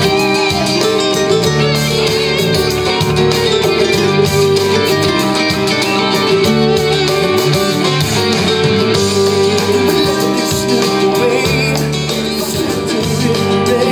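A recorded pop-rock song playing, a guitar-led instrumental passage with a steady drum beat.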